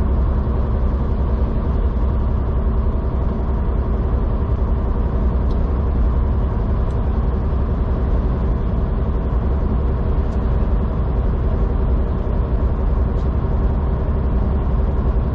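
Semi-truck's diesel engine and road noise heard inside the cab while cruising at highway speed: a steady low hum that holds even throughout.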